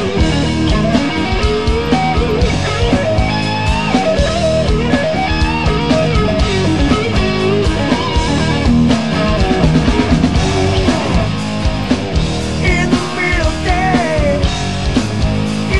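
Rock band in an instrumental stretch of a song: an electric guitar lead with bending notes over bass and drums.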